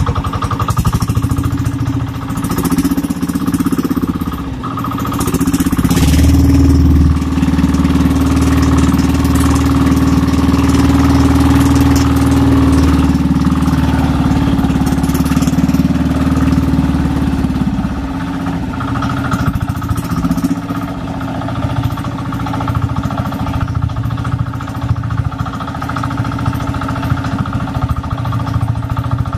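Engine of a motorized outrigger boat (banca) running steadily under way. The low drone grows louder about six seconds in and eases back about twelve seconds later.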